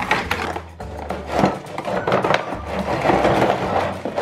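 Cardboard box flaps scraping and plastic playset pieces clattering and rustling as they are pulled out of the box, with many small knocks and clicks.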